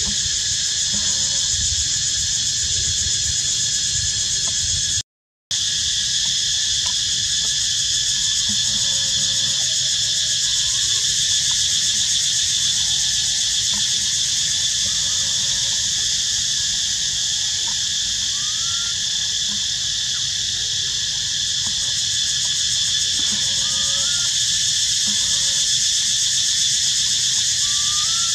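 Steady, loud chorus of insects buzzing in the trees. It cuts out completely for about half a second around five seconds in. Over it, a few faint short rising chirps come in the second half.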